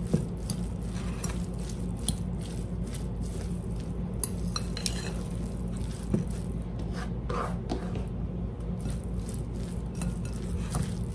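Metal fork stirring chopped corn and cilantro in a glass bowl, with irregular light scraping and clinks against the glass, over a steady low hum.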